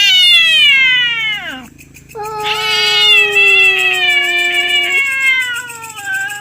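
Tomcats caterwauling in a territorial standoff: a long yowl sliding down in pitch, a short break, then drawn-out yowls from two voices at once, the lower one cutting off suddenly after about three seconds.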